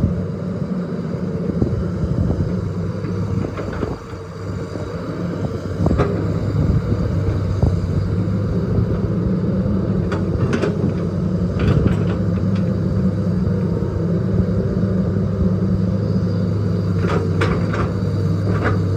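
Hitachi EX200 excavator's diesel engine running steadily under load, with a dip about four seconds in, and several short sharp knocks in clusters near the middle and again near the end.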